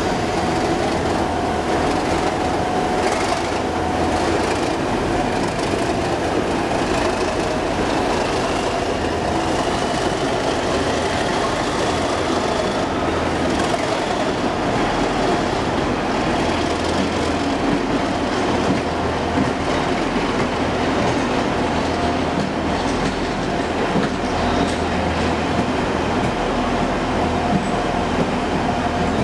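English Electric Class 37 diesel locomotive with its V12 engine working as it draws a train of coaches out of the station, the coaches rumbling and clattering over the rails behind it. A whine rises steadily in pitch over the first dozen seconds.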